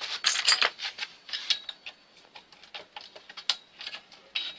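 Metal tool clicking and scraping against a bicycle bottom bracket's pinned lockring as it is worked at. A quick run of clicks comes in the first second, then scattered single ticks.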